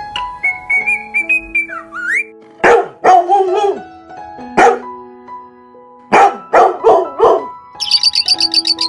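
A dog barking about seven times in two bouts over background music with a whistled melody; rapid high chirping comes in near the end.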